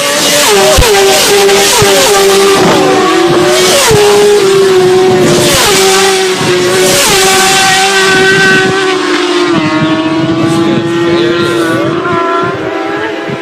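Several high-revving sport motorcycle engines running at full speed, loud and continuous, their pitch repeatedly climbing and then dropping sharply as they shift through the gears.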